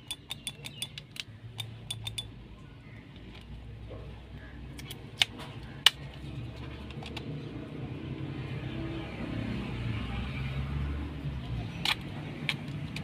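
Sharp plastic and metal clicks from a cordless screwdriver and its bits being handled: a quick run of clicks at the start, two louder ones about five and six seconds in, and two more near the end, over a low steady rumble.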